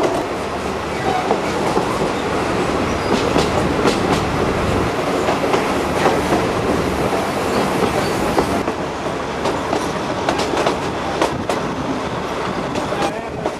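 Passenger train running along the track, heard from inside a carriage: a steady rumble and rattle with the wheels clacking irregularly over the rail joints.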